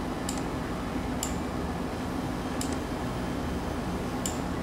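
Computer mouse clicking four times at uneven intervals over a steady low hum of room or equipment noise.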